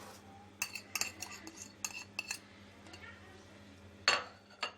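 Light clinks and taps of a spoon against dishes as spices and salt are added to minced meat, about half a dozen in the first couple of seconds and two louder ones near the end.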